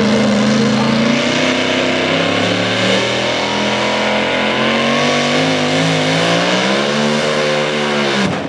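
Supercharged engine of a super modified 4x4 pulling truck running hard under load while dragging the sled. Its pitch wavers, climbs and arcs back down in the second half, then drops off sharply near the end.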